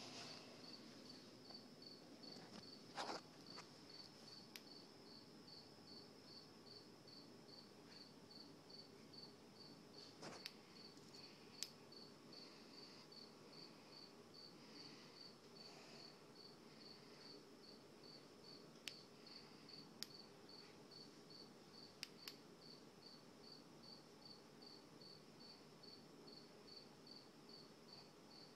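Faint, steady chirping of a cricket, about two short high chirps a second, over near silence, with a few soft clicks and knocks scattered through.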